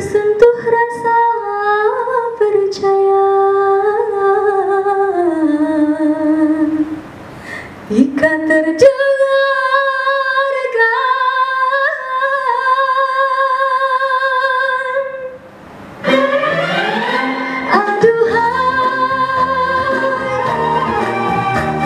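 A woman singing a pop Islami song into a handheld microphone over instrumental accompaniment, with long held notes and vibrato; the longest note is held through the middle, and after a short break about two-thirds through the accompaniment fills out.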